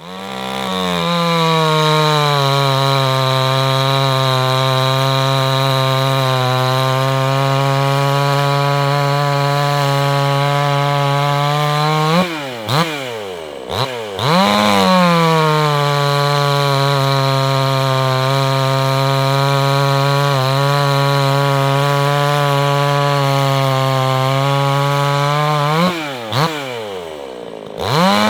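Two-stroke chainsaw with a round-filed .325 pitch chain running at full throttle, cutting through wood at a steady high pitch under load. Twice, about twelve seconds in and again near the end, the engine note dips and swoops as a cut breaks through and the throttle drops, then climbs back to a steady pitch for the next cut.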